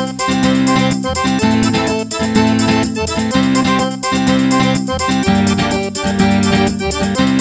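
Background music: a keyboard tune with sustained chords changing about once a second over a steady beat.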